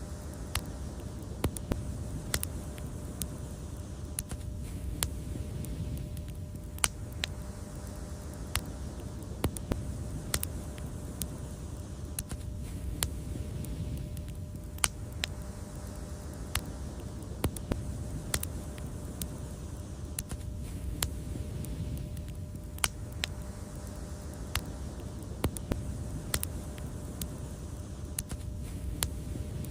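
Wood fire crackling: irregular sharp pops and snaps, one to three a second, over a steady low rumble of the flames.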